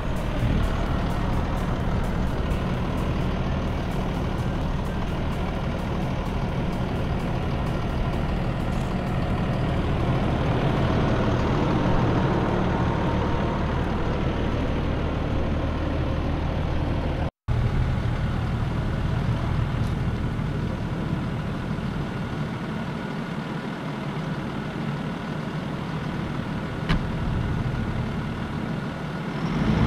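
Fendt 714 tractor's diesel engine running steadily under load while pulling a plough, heard close up at first. After a brief dropout partway through, it is heard from farther away and grows louder again near the end as the tractor comes closer.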